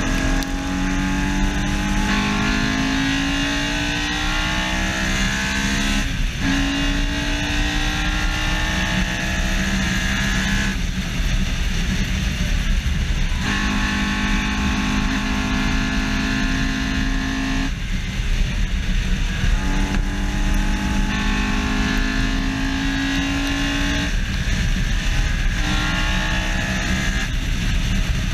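Honda S2000's F20C four-cylinder engine running under hard acceleration on track, its pitch climbing and then dropping abruptly about five times. Heavy wind and road rumble at the front bumper lie under it.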